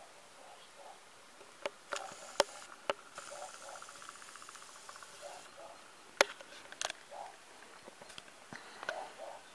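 A cat chewing a freshly killed mouse, with a few sharp crunches of bone, a cluster about two seconds in and another about six seconds in. An insect buzzes for a couple of seconds between them.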